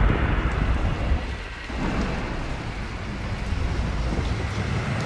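Thunder and rain: a low rumble of thunder that dies away about a second and a half in, leaving a steady hiss of rain.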